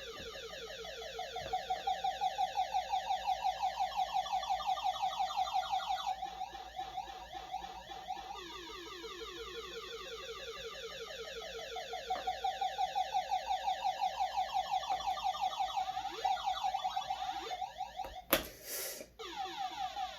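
An electronic alarm sounding: a fast-pulsing tone whose pitch slowly sweeps through a cycle twice. A short, sudden noise breaks in near the end.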